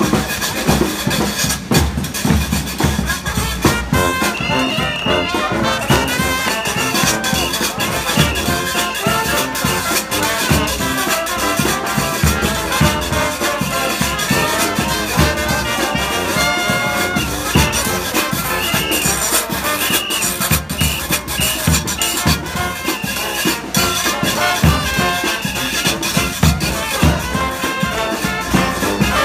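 A New Orleans brass band plays jazz with trumpets and trombones over a steady drum beat.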